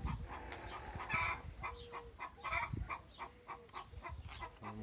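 Round chainsaw file held in a PFERD CS-X sharpening guide rasping across the chain's cutters in a few forward strokes, with short repeated animal calls in the background.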